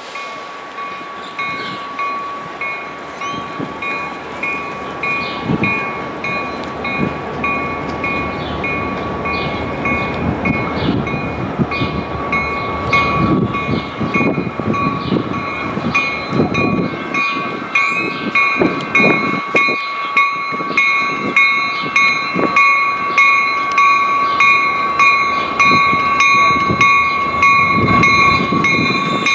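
Railroad crossing bell ringing in a steady, regular rhythm while a train approaches, the train's rumble growing louder through the second half.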